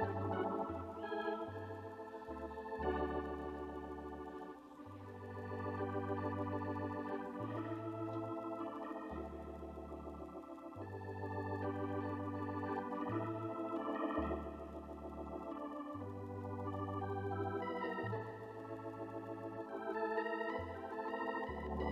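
Organ music playing slow sustained chords over a bass line that changes note every second or two, with a slight wavering vibrato on the held notes.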